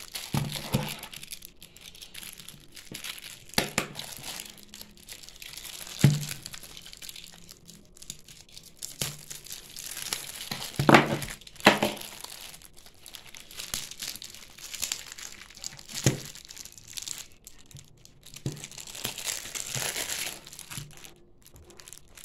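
Plastic wrapping crinkling and tearing as it is pulled off a set of comic books by hand, in irregular rustles with a few sharper, louder crackles, the loudest about eleven seconds in.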